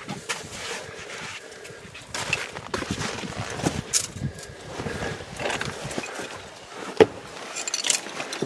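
A hiker scrambling up through a narrow rock crevice: irregular scrapes, shuffles and knocks of shoes, hands and pack against rock, with one sharp knock about seven seconds in.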